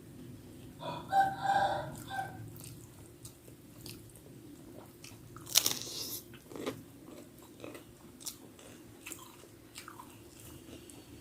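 Close-up eating sounds: chewing with small wet clicks and a loud crunching bite about five and a half seconds in. A rooster crows in the background about a second in.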